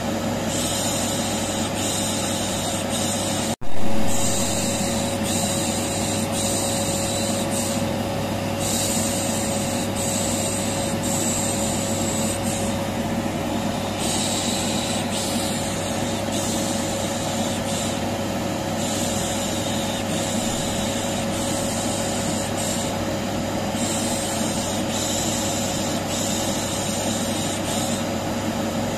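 Vacuum cleaner running steadily with a constant motor whine, overlaid with a shushing hiss that comes and goes every second or two: white noise to soothe a colicky baby. About three and a half seconds in, the sound cuts out for an instant and returns with a brief loud burst.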